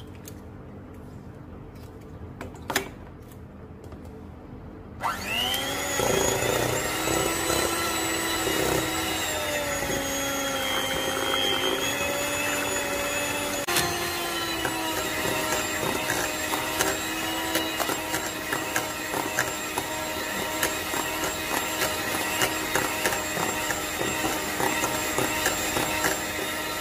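Electric hand mixer switched on about five seconds in, its beaters whipping cream cheese, sugar and egg batter. The motor's whine rises as it spins up and shifts pitch a couple of times. Before it starts there are a few light knocks.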